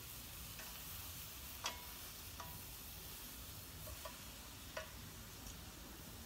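Tomatoes and other vegetables sizzling faintly in a hot pan, with metal tongs clicking sharply against the pan a few times as they are turned.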